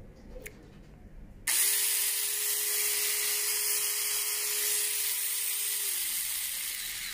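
A small 21-volt cordless mini chainsaw switched on about a second and a half in, its electric motor and chain running free with a steady whine over a loud hiss. The sound fades near the end.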